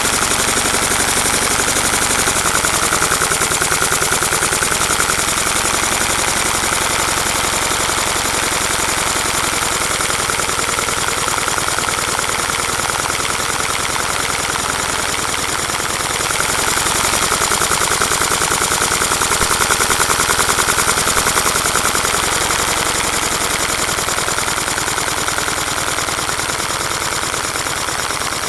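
LEGO boxer engine model running: a fast, steady clatter of plastic pistons and connecting rods, rising a little in loudness for several seconds past the middle.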